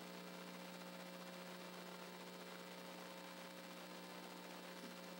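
Faint, steady electrical hum with a constant hiss.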